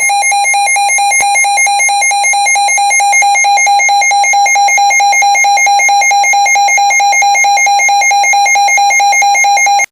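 Emergency Alert System attention signal: a loud, steady electronic alert tone held for about ten seconds, starting and stopping abruptly.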